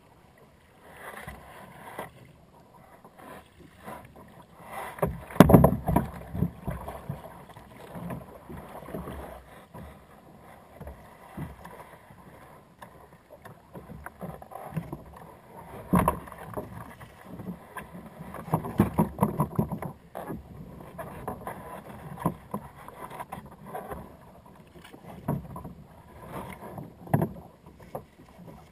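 Irregular knocks and bumps against a plastic sit-on-top fishing kayak and its gear as a fish is brought aboard and handled, loudest about five and a half and sixteen seconds in.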